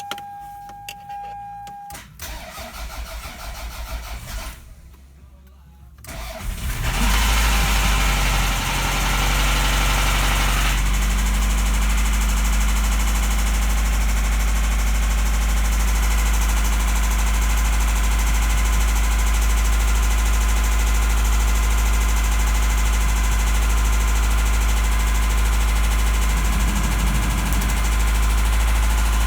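A short steady tone, then a 1993 Toyota Celica's 5S-FE 2.2-litre four-cylinder cranks and starts about six seconds in and keeps running loudly. It runs with rod knock and valvetrain clatter after being run out of oil, starting after sitting for five months.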